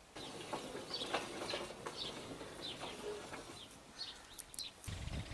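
Small birds chirping faintly: short, high, falling chirps every half second to a second over quiet outdoor background. A low rumble comes in near the end.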